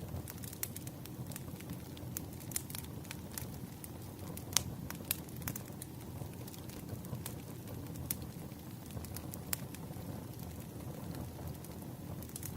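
Wood fire crackling: irregular sharp pops and snaps over a steady low rumble. The loudest snaps come about four and a half and five seconds in.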